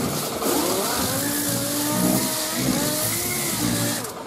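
Power sander with coarse 40-grit paper grinding down body filler on a truck's wheel arch: a steady abrasive hiss over a motor whine that wavers up and down in pitch as the pressure on the pad changes, dipping briefly near the end.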